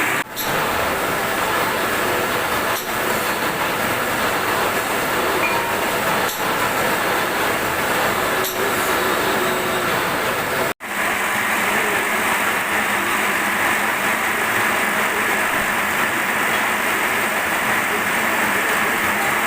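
Steady, even mechanical running noise of a machine. It dips briefly a few times and cuts out sharply for an instant about eleven seconds in.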